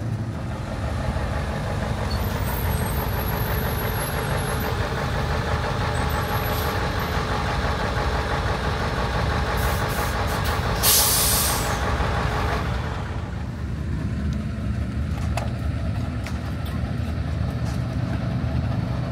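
Dakar rally truck's diesel engine running as it drives in and comes to a stop, with a short loud hiss of compressed air from the air brakes about eleven seconds in. After the hiss the engine's whine stops and it runs on more quietly at idle.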